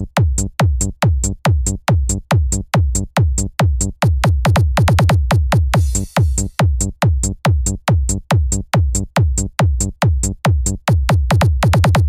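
Loud electronic dance music built on a heavy, booming kick drum at about two and a half beats a second, each kick dropping in pitch, with a crisp high tick on the beat. A quicker run of drum hits comes about halfway through.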